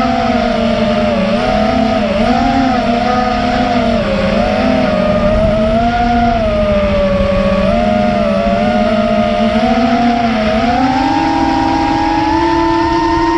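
FPV racing drone motors and propellers buzzing loudly, the pitch wavering up and down with the throttle, then climbing to a higher steady pitch about eleven seconds in.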